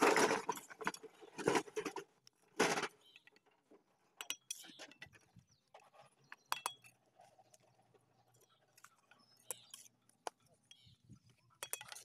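Fired clay bricks being laid on mortar and knocked into place, brick striking brick with sharp clinks. A few louder knocks come in the first three seconds, then single clinks scattered through the rest.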